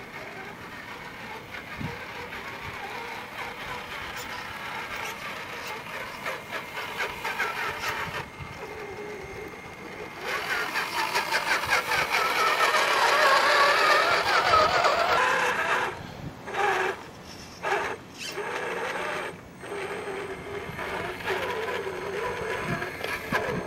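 Tamiya CC01 radio-controlled crawler's electric motor and gearbox whining, the pitch wavering with the throttle. It is loudest about halfway through, then cuts out and starts again several times in quick succession.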